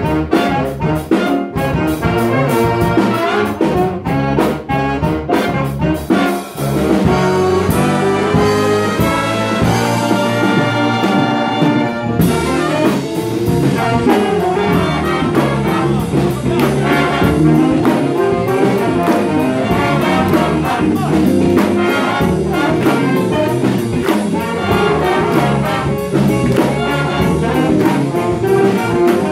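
Student jazz big band playing live, with a saxophone section, trumpets and trombones together. Short punchy accents in the first few seconds give way to held horn chords from about seven to twelve seconds in, then busier ensemble playing.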